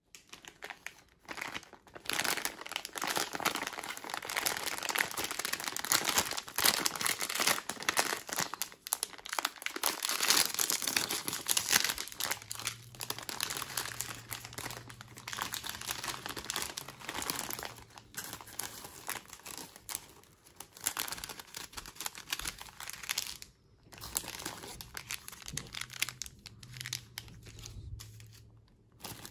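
The foil-lined plastic wrapper of an instant ramen packet crinkles and rustles as it is handled and torn open. The crinkling is busiest in the first half and becomes sparser and broken later, as the sachets are taken out.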